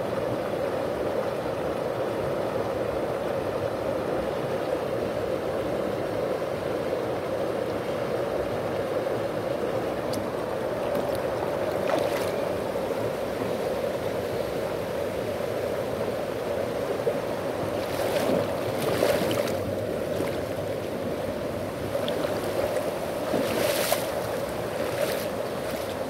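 Clear mountain stream water flowing and rippling over a shallow pebbly bed: a steady rushing noise. A few brief louder bursts of hiss come in the second half.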